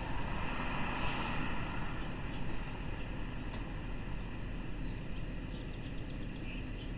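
Steady outdoor rumble of road traffic, with a vehicle passing about a second in and the sound then slowly fading.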